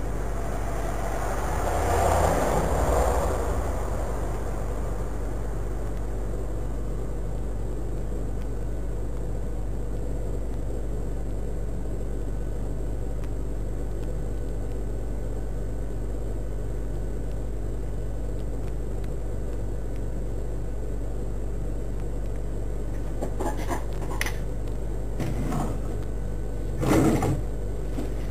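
Steady low hum with hiss, typical of a surveillance camera's audio in a shop. There is a brief louder rustling swell about two seconds in, and a few short knocks and clatters near the end as someone moves about behind the counter.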